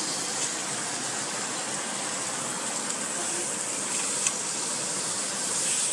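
Steak sizzling in hot oil in a frying pan, a steady hiss. A short click about four seconds in as a spatula turns the steak.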